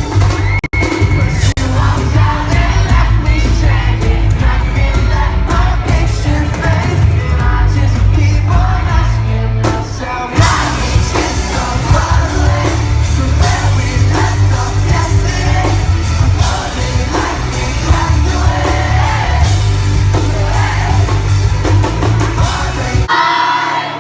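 Live pop-rock band playing loudly at an arena concert, heavy bass and drums under the music, with the crowd yelling and singing along. The sound changes abruptly shortly before the end.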